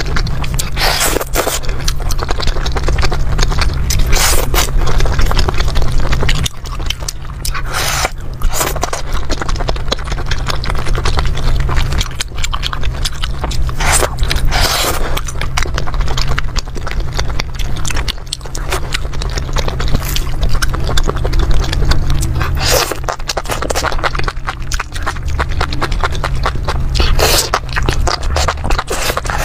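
Close-miked chewing and biting of sauce-coated skewered food, full of wet mouth clicks and smacks, over a steady low hum.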